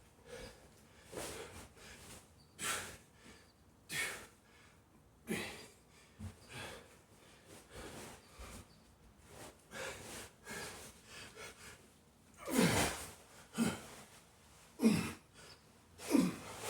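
A man breathing hard from heavy exertion, with short forceful exhales and gasps every second or so. About twelve seconds in they grow louder, several becoming grunting exhales that drop in pitch.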